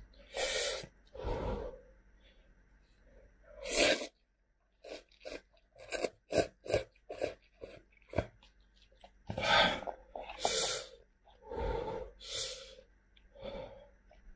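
Close-up sounds of a person eating instant ramen noodles: several short slurps, with a run of quick wet chewing clicks, about three a second, in the middle.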